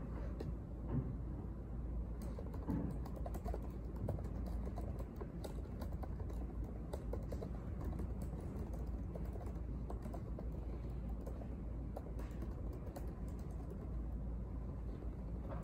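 Typing on a laptop keyboard: an irregular run of quick, light key clicks over a steady low background hum.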